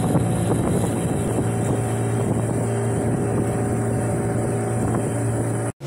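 Mercury 15 hp outboard motor running at a steady speed with the boat under way, over the rush of water and wind on the microphone. The sound breaks off abruptly near the end.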